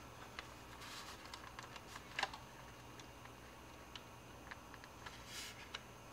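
Faint, scattered clicks and ticks of plastic model kit parts being handled and pressed together as the fuselage and wing are fitted, with one sharper click about two seconds in and a soft rustle near the end.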